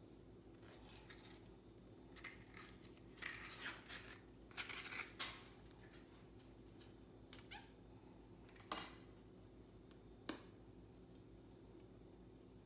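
A metal spoon scraping avocado flesh out of its skin in soft strokes, then a sharp ringing clink as the spoon strikes the rim of a glass mixing bowl to knock the avocado off, followed by a lighter tap.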